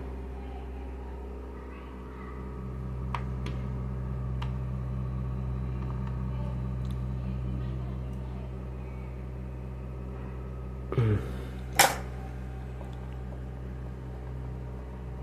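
A few light metallic clicks as a screw on an Elgin sewing machine's shaft bushing is tightened to take up play in the shaft, over a steady low hum, with a sharper click near the end.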